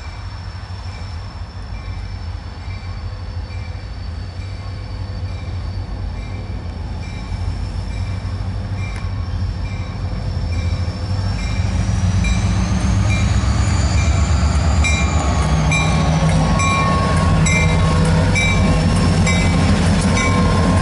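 Two EMD two-stroke diesel locomotives approaching and passing. Their low engine drone grows steadily louder and jumps up about eleven seconds in as they draw level, with regular wheel clicks over the rails and a high whine that rises and then falls in pitch while they go by.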